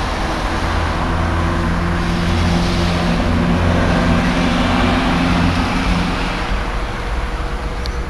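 Car engine and road noise, a steady low hum that grows a little louder for a few seconds and then eases off.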